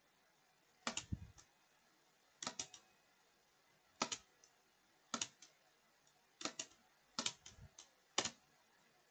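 Computer mouse and keyboard clicking: about seven short clusters of two or three sharp clicks, roughly a second apart, with a couple of dull knocks among them.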